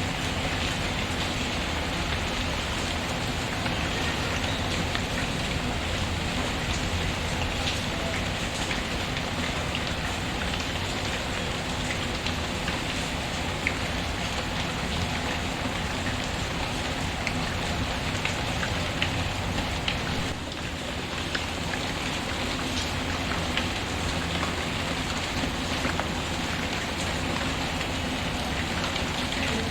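Steady rain falling, with a few sharp crackles from a wood fire mixed in.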